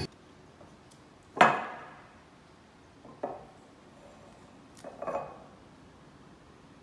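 Glass bottles handled on a countertop: three separate knocks with a short clinking ring, about a second and a half in, at about three seconds, and at about five seconds, the first the loudest.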